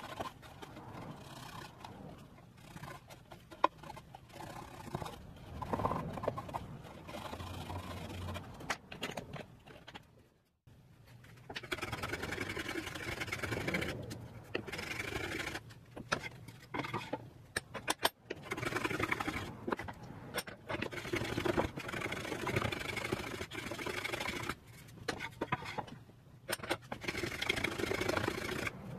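A cloth rubbing over a wooden box, then, from about ten seconds in, a hand-made brass infill mitre plane taking repeated shaving strokes along a board edge, each stroke lasting a second or two with short pauses between.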